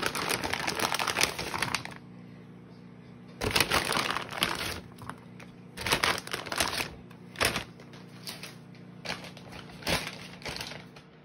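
Plastic bag of thawed green beans crinkling as the beans are shaken out onto a metal sheet pan, the beans landing on the pan; dense crackling for the first two seconds, then several shorter bursts of rustling and taps.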